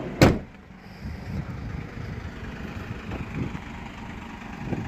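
A van door slams shut about a quarter second in, followed by a steady low rumble.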